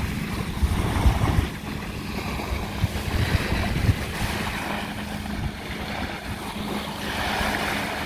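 Wind buffeting the microphone, strongest in the first second and a half, over small lake waves lapping on a sandy shore, with a faint steady low hum underneath.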